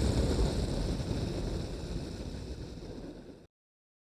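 Weight-shift trike's engine and wind noise on the microphone, a steady rumble that fades out gradually and cuts off to silence about three and a half seconds in.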